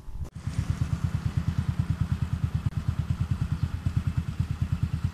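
Small motorcycle engine running at a steady speed with an even putter of about nine beats a second. It starts abruptly about a third of a second in and stops abruptly near the end.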